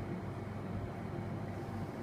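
Steady low hum with a hiss of background noise, even throughout with no distinct sounds.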